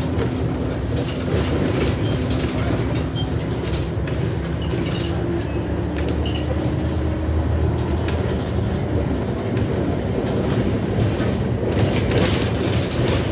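Go North East bus 8323 on the move, heard from inside: a steady engine drone and road rumble, with loose interior fittings rattling.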